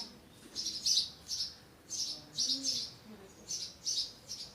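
A small bird chirping repeatedly, short high chirps in clusters of two or three about once a second.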